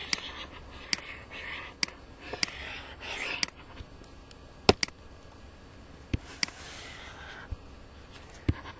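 A stylus tapping and scratching on a pen tablet while writing by hand: sharp clicks scattered through, with three short stretches of scratchy hiss as the pen is drawn across the surface.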